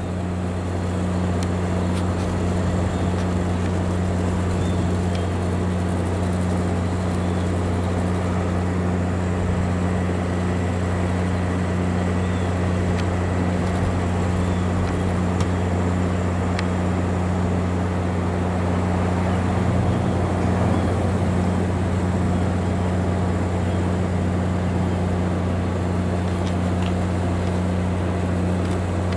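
An engine running steadily, a constant low drone that does not change in pitch or level.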